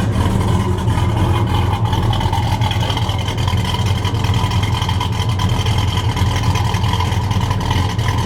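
The 1972 Dodge Demon's 340 V8, breathing through headers and a 2.5-inch stainless steel exhaust, idling steadily.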